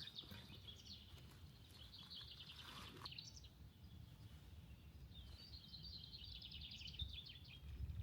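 A small songbird singing faintly in rapid trilled phrases, several times a few seconds apart, over a low steady outdoor rumble.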